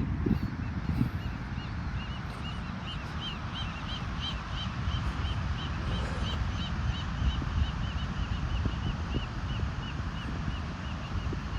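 A small bird chirping over and over, about three short high chirps a second, over the steady low rumble of wind and surf.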